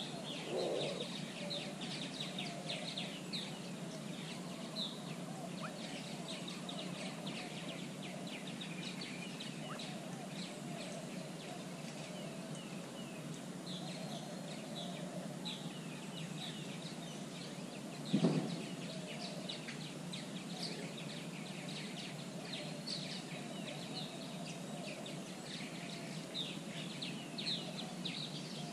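Outdoor chorus of birds: many short, high, falling chirps repeat throughout over a lower, steady chattering. A single dull thump stands out about eighteen seconds in.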